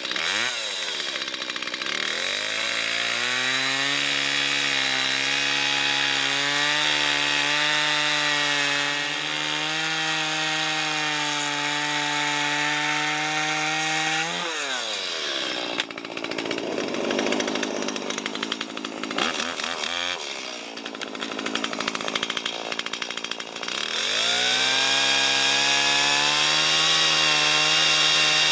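Stihl two-stroke chainsaw cutting through a log to square off its end. The engine revs up about two seconds in and holds high under load, drops back about halfway through, runs unevenly for several seconds, then revs up again and cuts near the end.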